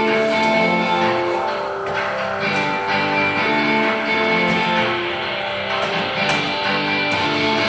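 Guitar-led music playing steadily, with held notes and chords changing about every half second and no singing.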